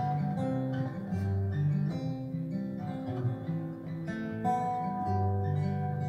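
Steel-string acoustic guitar playing a song's instrumental introduction, a run of strummed chords and ringing notes with no voice yet.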